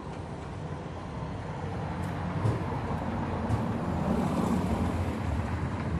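A car driving past on the street, a low engine and tyre rumble that grows louder about four seconds in, with a few light clicks.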